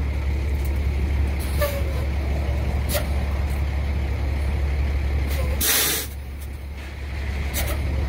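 Highway traffic with a steady low rumble, several short swishes of passing vehicles, and one loud hiss about five and a half seconds in, after which the rumble briefly drops.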